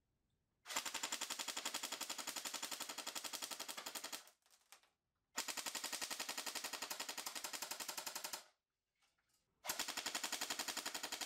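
S&T BAR M1918A2 airsoft electric gun (AEG) firing on full auto, in three long bursts of rapid, evenly spaced shots at about 18 rounds a second. There are short pauses between the bursts, and the last one starts near the end.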